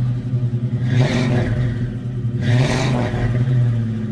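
Car engine sound effect running steadily with two revs, about a second in and again near the middle, then starting to die away near the end.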